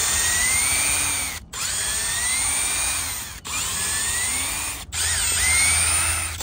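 Cordless drill/driver backing out the bolts that hold the mounting bracket onto an ARB twin air compressor. Its motor whine rises and falls in pitch over four runs, with short stops between them.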